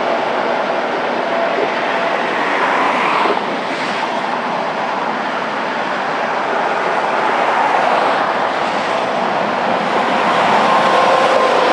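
Steady rush of freeway traffic passing at speed, growing a little louder near the end.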